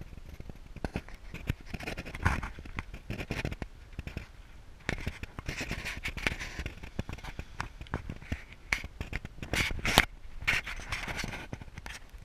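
Irregular scrapes, rubs and clicks of a handheld action camera being moved about and repositioned on a bare metal mini-bike frame.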